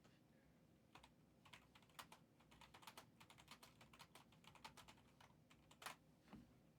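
Faint, quick, irregular clicking of typing on a computer keyboard, starting about a second in and stopping near six seconds.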